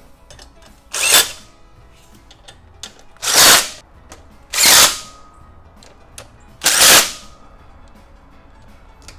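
Cordless impact driver running bolts in: four short bursts, each under a second, about a second in, then at roughly three and a half, four and a half and seven seconds. It is driving the bolts of a transmission adapter plate into a Ford 460 big-block.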